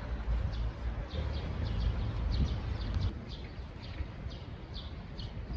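A small bird chirping repeatedly, short high chirps about two or three a second, over a steady low rumble.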